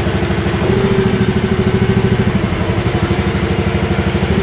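Mini excavator's small engine running with an even, rapid pulse, working the hydraulics as the machine swings on its swing motor, the motor's new cushion valve set 6.5 turns out. A faint steady whine joins the engine note about a second in.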